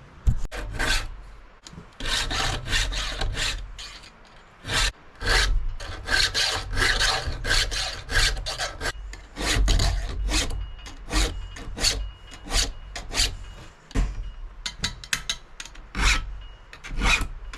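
Chainsaw chain being sharpened by hand with a file: repeated rasping file strokes across the cutters, coming about one a second or faster with short pauses between runs.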